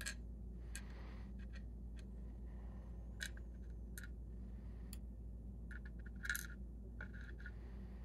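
Scattered small metallic clicks and taps of tweezers working the parts out of an ASSA Desmo lock cylinder, the loudest cluster of clicks about six seconds in.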